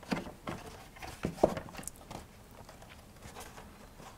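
Hands pressing and handling a glued cardstock box on a wooden tabletop: a few soft taps and knocks in the first second and a half, the loudest about a second and a half in, then faint paper handling noise.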